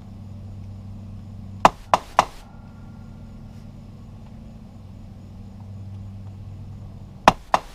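A hammer tapping a metal punch against a broken stud to mark its centre for drilling. Three quick sharp taps come about two seconds in, then two more near the end.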